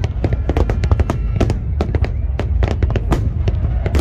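Large fireworks display: a rapid barrage of aerial shells bursting and crackling, several bangs a second over a continuous low rumble.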